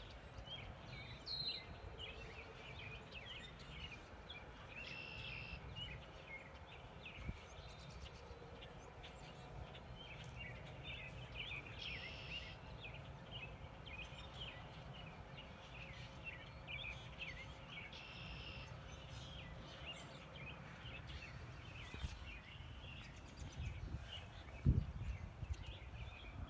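Wild birds chirping, with one bird repeating a short buzzy song phrase about every six or seven seconds, over a low outdoor rumble. A single dull thump near the end.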